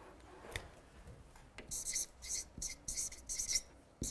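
Marker pen writing on a flip-chart pad: a single click a little over half a second in, then a quick run of short scratchy strokes from about one and a half seconds on.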